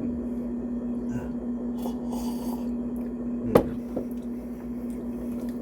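Steady low hum with light handling noises: a brief rustle about two seconds in and one sharp knock, like something set down on a hard surface, about three and a half seconds in.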